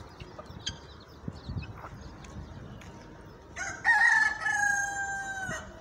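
A rooster crowing once, about three and a half seconds in: one long call of about two seconds.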